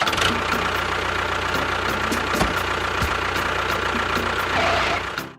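A vehicle engine running steadily, with a low hum and a faint steady high whine; it fades out just before the end.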